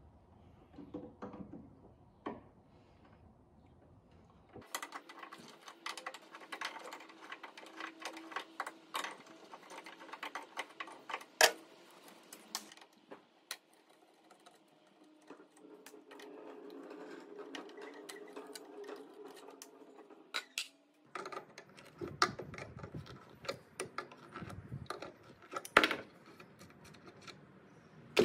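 Hand tools working hinge screws out of a wooden cabinet door: a screwdriver and pliers on small metal screws and a hinge, making an irregular run of small metallic clicks and scrapes with a few sharper knocks.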